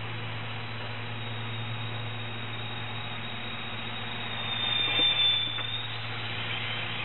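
Small electric RC autogyro's motor and propeller whine, faint at first, then rising to a loud high-pitched buzz as it passes close by about four to six seconds in, over a steady low hum and hiss.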